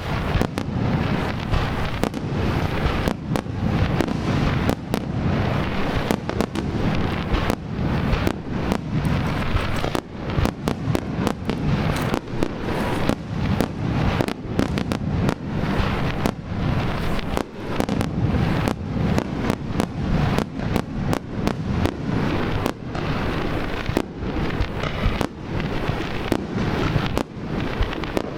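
Wide starmine fireworks display: a continuous rapid-fire barrage of aerial shell bursts, many sharp bangs and cracks a second overlapping over a constant low rumble.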